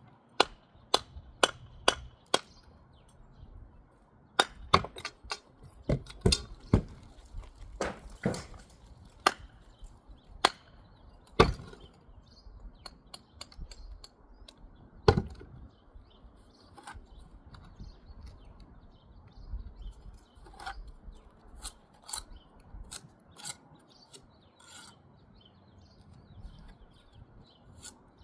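Mason's trowel scraping mortar and tapping bricks into place: irregular sharp clicks and knocks with scraping between them, busiest in the first half.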